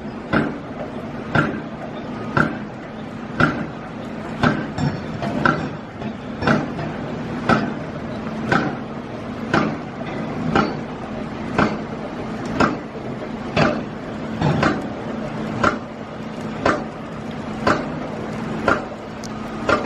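Construction machinery striking in an even, machine-like rhythm: a sharp impact about once a second with a brief ringing, over a steady low hum.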